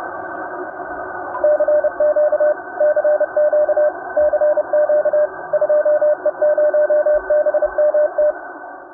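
Morse code: a single tone of about 600 Hz keyed on and off in dots and dashes, in groups, starting about a second and a half in. Under it runs a steady radio hiss with a narrow, telephone-like range.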